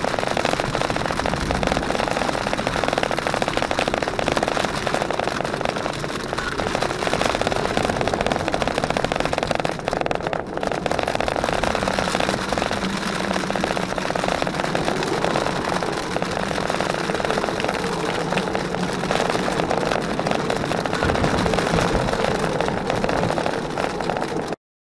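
Jeep Wrangler JKU driving down a gravel trail: engine running under a dense, steady rush of tyre and road noise, with a steady engine hum coming through from about halfway. The sound cuts off abruptly just before the end.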